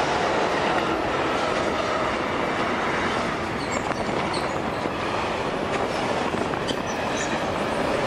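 Freight train passing: a steady rumble of wheels on rails, with a few short high squeaks about halfway through.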